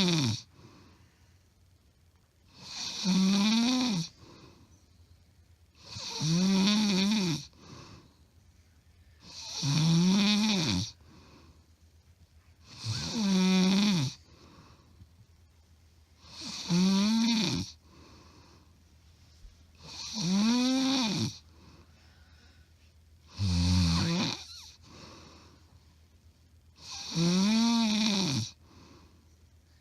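A woman snoring loudly in her sleep: a pitched snore on each in-breath, each about a second long and rising then falling in pitch, about every three and a half seconds in a steady rhythm, with quiet breathing between. The snoring is just loud, which the uploader says is not sleep apnea.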